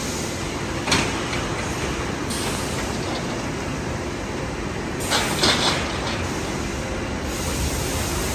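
Steady machinery noise from a rock wool production line, with a sharp knock about a second in and a short burst of clattering around five to six seconds in.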